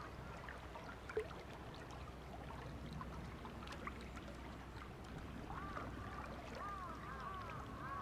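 Wild forest birds calling: short arching notes given in quick series, busiest in the second half, over a steady low rumble of ambient noise. A single sharp tick about a second in.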